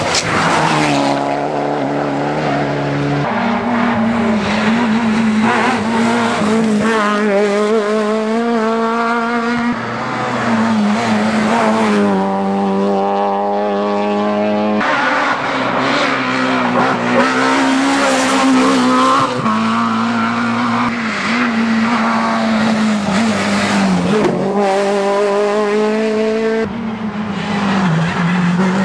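Rally cars driven hard through tarmac bends one after another, among them a Mitsubishi Lancer Evolution and a Renault Clio, engines revving high with quick gear changes and some tyre squeal.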